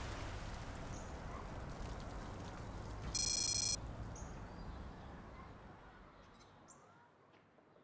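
Rain falling on wet stony ground, a steady patter that fades out over the last few seconds. A short, high electronic beep lasting about half a second sounds about three seconds in and is the loudest sound. A few faint bird chirps are heard.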